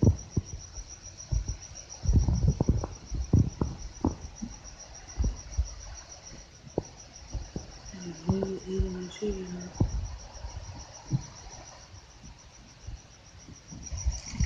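A cricket chirping steadily in a rapid, even, high-pitched pulse, with scattered low thumps and rustles from the phone being handled.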